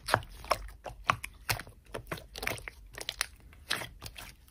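Hands squeezing and pressing a soft pink slime, which gives off irregular sticky clicks and crackles as it is worked.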